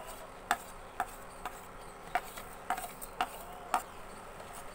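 A steel spoon clicking lightly against a melamine spice plate and bowl, about two sharp clicks a second, some with a short ring, as powdered spices are scooped and tipped into gram flour.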